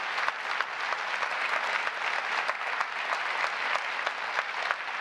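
Audience applauding: dense, steady clapping that starts suddenly.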